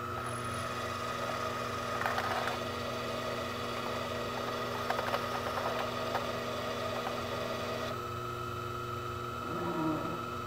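Sherline CNC chucker lathe turning a metal bar: a steady motor hum with the rough scraping of the cutting tool and a few ticks as a long spiral chip peels off. The cutting noise stops about eight seconds in, leaving the motor hum, with a brief gliding motor tone near the end.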